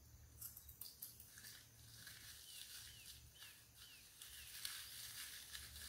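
Faint sticky crackling and squishing of glitter-covered slime being worked by hand in a bowl, with a few faint short high chirps about two to four seconds in.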